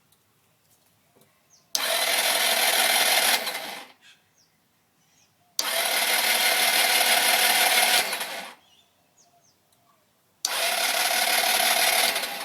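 SYM HD 200 scooter's electric starter cranking its single-cylinder four-stroke engine three times, each try lasting two to three seconds and dying away without the engine catching: a no-start despite a good battery, a new spark plug and a full tank.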